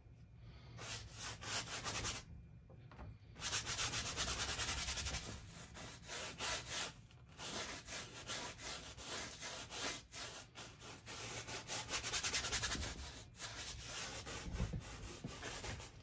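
Wide flat brush scrubbing oil paint onto a stretched canvas dampened with thinner, in long stretches of rubbing strokes with a short break about two seconds in.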